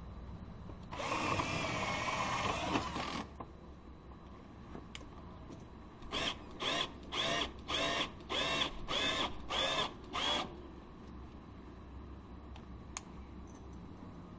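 Power drill/driver driving a screw: one run of about two seconds, then eight short trigger pulses about half a second apart, the motor whine rising and falling with each. It is driving temporary screws to hold a steel door-jamb reinforcement plate in place.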